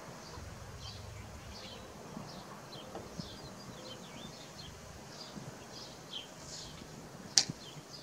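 Small birds chirping throughout, short quick calls over a quiet outdoor background. Near the end comes one sharp click: tin snips cutting the rubber trim strip.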